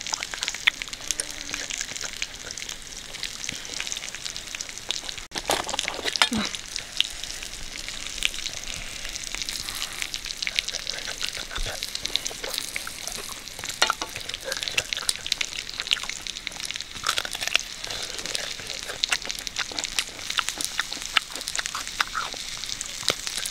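A person eating close to the microphone: wet chewing and crunching, with many short irregular mouth clicks and smacks.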